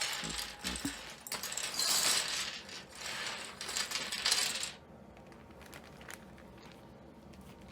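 A bag of plastic keycaps poured out onto a desk: a dense rattling clatter of many small pieces for about four and a half seconds that stops abruptly.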